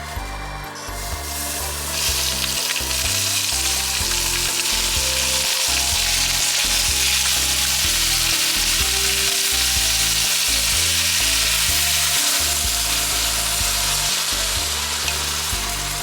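Food frying in a hot pan, a dense sizzle that builds in over the first couple of seconds and eases off near the end, over background music.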